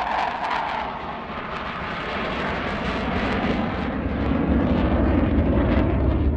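Saab JAS 39E Gripen fighter jet passing overhead on dry thrust, with no afterburner. The noise of its F414 turbofan shifts from a higher rushing sound to a deeper, louder one toward the end.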